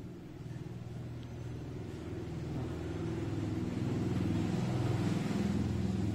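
A motor vehicle's engine running, low and growing steadily louder as it comes nearer.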